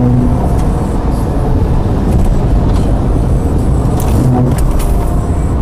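Car travelling at highway speed, with steady road and engine noise heard from inside the cabin. A short low tone sounds at the start and again about four seconds in, and a few faint clicks come near the end.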